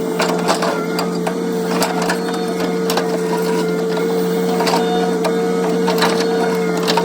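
Hitachi mini excavator running with a steady hum and whine, with irregular knocks and cracks from the grapple attachment working material.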